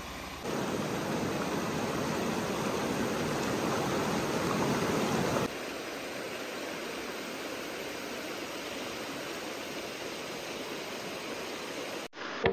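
Shallow river water running over rocks, a steady rush. It is louder for the first five seconds or so, then drops to a softer rush.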